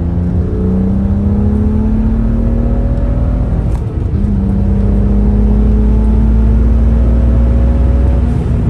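Car engine accelerating under load, its pitch climbing slowly, then dropping with a gear change about four seconds in and climbing again.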